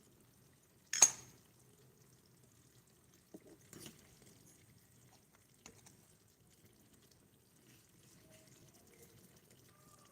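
Small kitchenware handled in a miniature kitchen: one sharp, ringing clink about a second in, then a few softer knocks.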